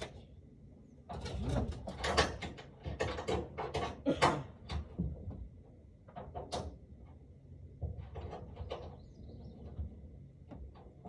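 Irregular knocks and clatter of objects being handled, thickest in the first five seconds, with a single sharp click about six and a half seconds in and a few lighter knocks later.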